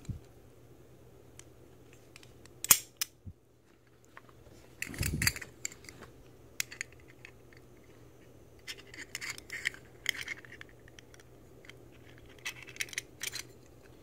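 Metal clamp-style belt buckles handled together, giving scattered light metallic clicks and scrapes, with a brief louder rustle of handling about five seconds in.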